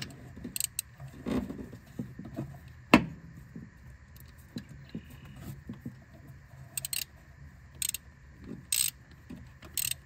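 Metal hand tools clinking and tapping in an engine bay as a socket on an extension is worked down onto a spark plug. Scattered light clicks, a sharp knock about three seconds in, and brief metallic jingles near the end.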